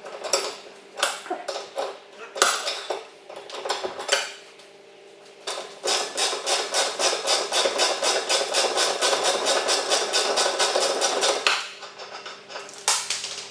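Hand ratchet wrench clicking in a fast, even run of about seven clicks a second as a lower control arm bolt is turned, after a few seconds of scattered metal clanks and clicks as the wrench is worked onto the bolt.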